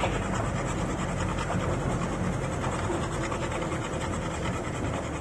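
Camper van driving: a steady engine hum and road rumble that hold an even level throughout.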